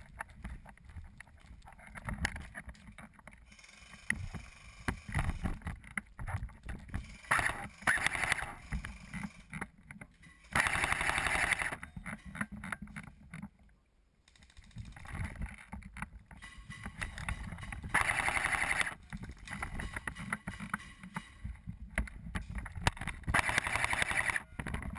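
Movement noise picked up by a body-worn GoPro action camera: footsteps, small clicks and gear rattle over a low rumble of wind and handling on the microphone, with several hissing rustles about a second long.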